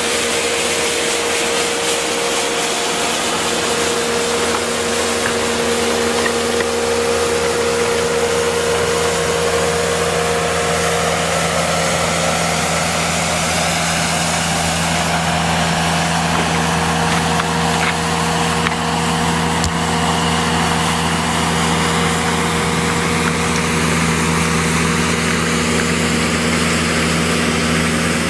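Bobcat S650 skid steer's diesel engine running steadily, under the broad, even hiss and scrape of its rotary sweeper broom brushing gravel and sand off the pavement.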